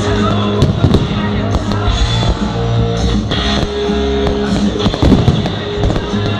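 Loud music playing, with firework bangs and crackles breaking through it several times.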